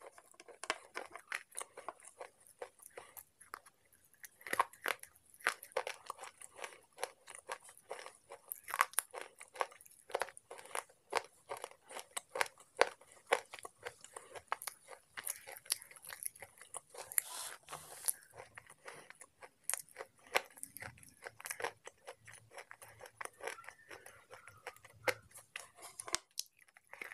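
Slate pencil being chewed close to the microphone: a steady run of short, sharp crunches, many each second.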